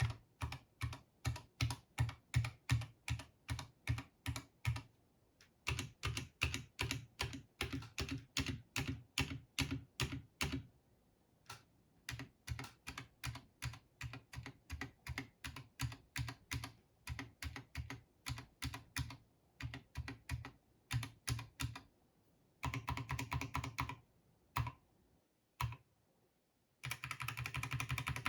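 Glorious GMMK2 Compact mechanical keyboard in stock form, keys pressed one at a time in a steady run of about three to four clacks a second, then more slowly and unevenly after a short pause. Near the end come two bursts of rapid continuous typing.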